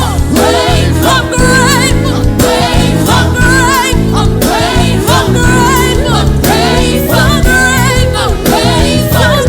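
Gospel choir singing with strong vibrato over sustained low instrumental accompaniment.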